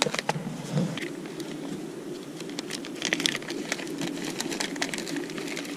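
Plastic bag crinkling and rustling as a wad of tangled fishing line is crammed into it by hand, a continuous irregular patter of small crackles.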